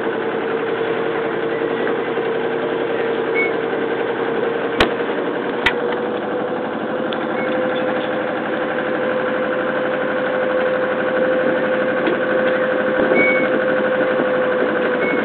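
A small river ferry's engine running steadily under way: a continuous hum whose pitch rises slightly about six seconds in. Two sharp clicks come about five seconds in.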